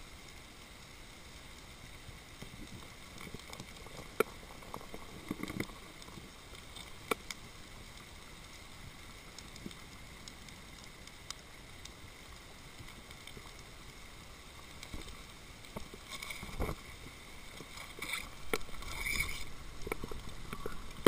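Underwater ambience heard through a camera's waterproof housing: a faint steady hiss with scattered sharp clicks. It gets busier near the end, with knocks and rustling noise.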